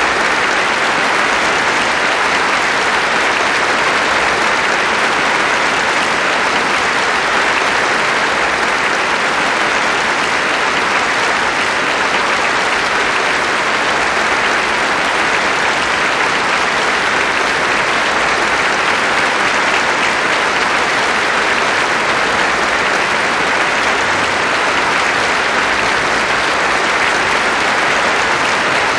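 Large audience applauding steadily: a dense, even wash of clapping that neither builds nor fades.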